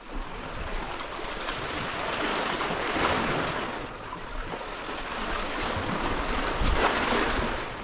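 Sea waves washing and sloshing against a concrete-block breakwater, a steady rushing of water that swells and eases.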